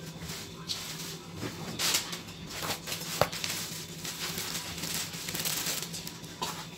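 Plastic packaging rustling and crinkling as it is pulled and handled around glass serving dishes, with a single sharp click about three seconds in.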